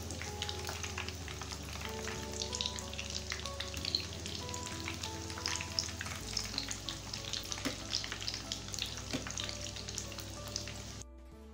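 Breadcrumb-coated vegetable cutlets sizzling and crackling in hot oil, with many sharp spits, while a metal slotted spoon turns them over in the pan. Soft background music runs underneath. Near the end the frying sound cuts off suddenly, leaving only the music.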